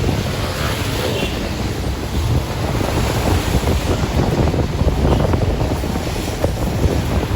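Wind buffeting the microphone: a loud, steady rumbling rush with irregular gusty swells and no clear tone.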